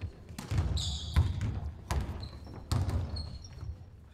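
A basketball bouncing on a wooden court, about five thuds at irregular intervals, with basketball shoes squeaking briefly on the floor, most sharply about a second in.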